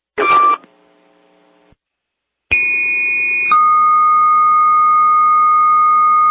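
Radio dispatch alert tones over a fire-department scanner channel: a short chirp near the start, then a two-tone sequential page made of a higher tone held about a second, stepping down to a lower steady tone for about three seconds. It is the alert that precedes the dispatcher's announcement to all units.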